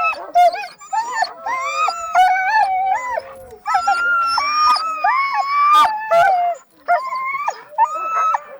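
A kennel of sled dogs, Siberian and Alaskan huskies, howling and yelping together, many voices overlapping.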